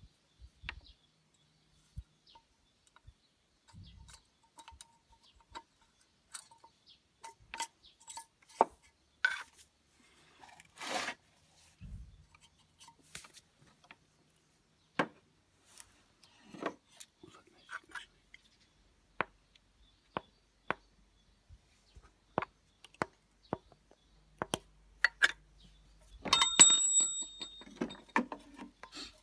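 Scattered metal clinks and taps of hand tools and engine parts being handled. Near the end comes a louder ringing metallic strike.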